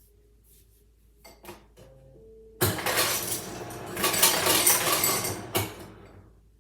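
Cups and soda cans handled on a tabletop: a few light clicks, then a thump and about three seconds of loud clinking and rustling that stops with a last click.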